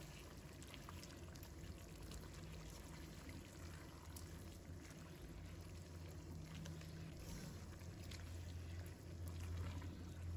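Faint simmering of a starch-thickened sauce in a nonstick wok, with light scrapes and clicks of a silicone spatula stirring bitter melon and tofu. A low steady hum underneath grows louder near the end.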